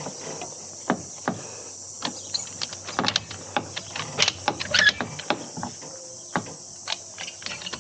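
Irregular clicks, taps and knocks of hand tools and metal parts being handled while working on an aluminium boat transom, thickest in the middle, over a steady faint hiss.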